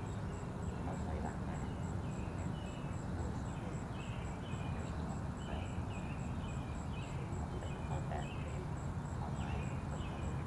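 Outdoor dawn ambience: a bird calling over and over in short chirps, over a steady low rumble, with a faint high ticking repeating about three times a second.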